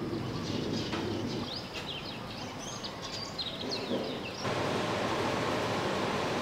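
Small birds chirping in quick short calls over a steady background hum of outdoor noise. About two-thirds of the way through, this switches abruptly to a steady, even hiss.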